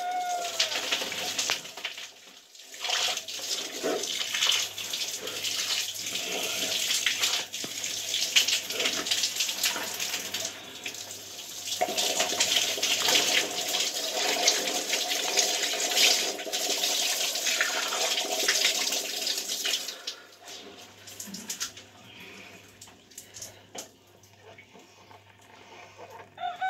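Shower water running and splashing onto lathered hair, a steady rush that cuts off about twenty seconds in.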